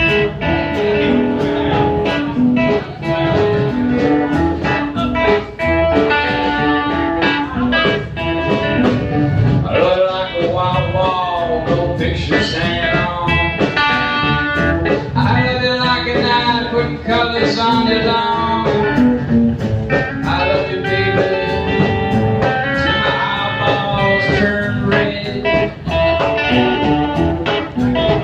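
Live blues band playing, with guitar lines over bass and a steady drum beat.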